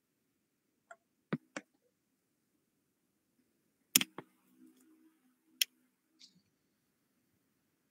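Scattered sharp clicks and taps over an online call line that is otherwise silent: about seven in all, a close pair about four seconds in the loudest.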